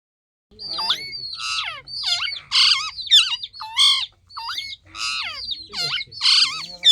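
A green parrot squawking over and over, about two harsh, rasping calls a second that bend up and down in pitch, starting about half a second in.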